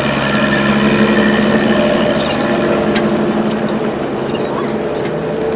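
Engine of a trackless tour train, a motor vehicle dressed as an old steam locomotive, running steadily as it tows its open carriages past.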